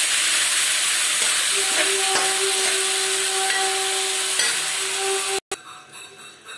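Diced ridge gourd and taro sizzling in oil in a kadhai as a spatula stirs them: a steady frying hiss with a few light spatula knocks, and a faint steady tone from about one and a half seconds in. The sizzle cuts off abruptly about five and a half seconds in, and a much quieter sound follows.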